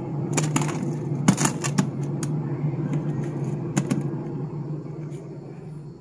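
Steady low hum of the two-door refrigerator running and cooling after its capillary tube and evaporator return line were replaced, with scattered clicks and knocks of plastic ice containers and bags being handled in the freezer. The hum fades near the end.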